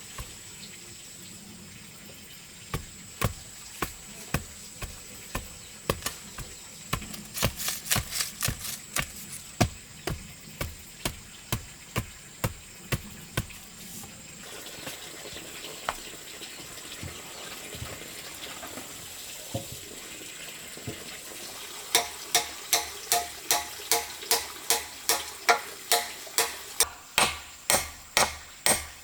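Hand tool blows on wood, about two a second, in two runs with a lull between them. The second, louder run has a ringing tone to each blow, typical of hammering.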